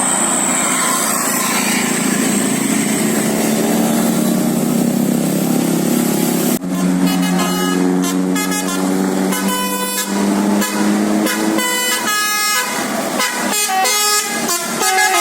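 A bus's 'telolet basuri' musical air horn playing a quick tune of short notes that change pitch, cutting in suddenly about six and a half seconds in. Before that comes a loud, noisy stretch with slowly rising pitched tones.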